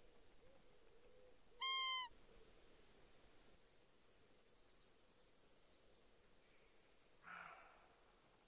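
A single high, clear call about two seconds in, one short, slightly falling note with many overtones. A shorter, harsher call comes near the end, with faint high bird chirps in between.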